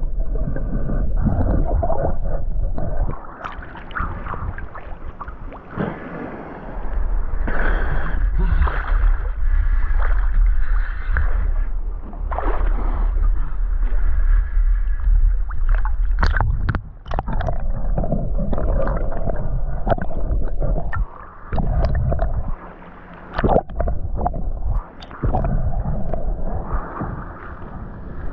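Muffled sloshing and gurgling of sea water around a waterproofed action camera as it moves underwater and bobs in and out at the surface, with a low rumble for stretches and a few sharp splashes or knocks.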